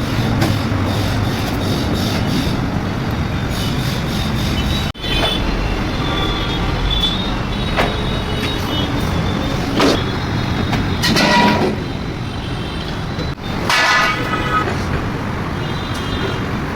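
Building-site work noise: a steady noisy rumble with scattered sharp knocks and clanks, a few of them ringing briefly like struck metal.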